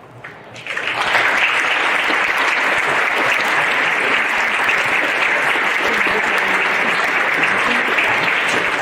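Audience applauding: many people clapping, swelling in about a second in and holding steady to the end.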